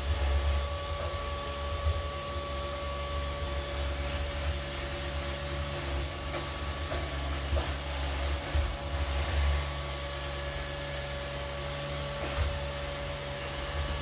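Neato D7 robot vacuum running: a steady motor hum with a thin, even whine over it, and a few faint knocks along the way.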